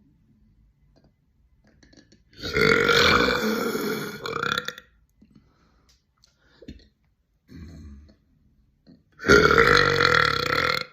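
A young woman burping: two long, loud burps of about two seconds each, the first a couple of seconds in and the second near the end.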